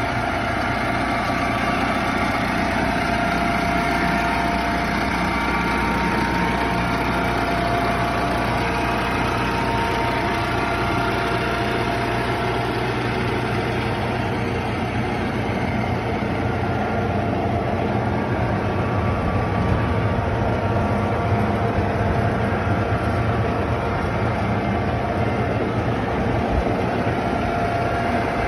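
2013 John Deere 6115D tractor's four-cylinder 4045H PowerTech E diesel idling steadily.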